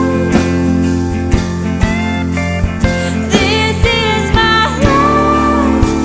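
An alt-country band playing, with a steady drum beat under guitars and a wavering, sliding lead melody.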